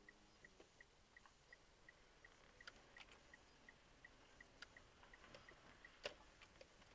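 A car's turn-signal indicator clicking faintly and evenly, about three clicks a second, heard inside the cabin while the car turns; the clicking stops about six seconds in. A few louder, irregular knocks sound over it, the loudest about six seconds in.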